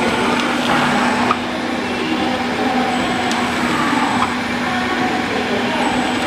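Plastic bag cutting and sealing machine running: a steady mechanical din with a constant hum and a few sharp clicks.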